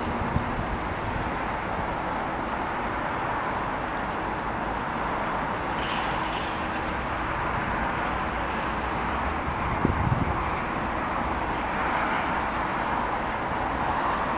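Steady outdoor rumble and hiss with slow swells, no distinct tone, and a gust of wind buffeting the microphone about ten seconds in.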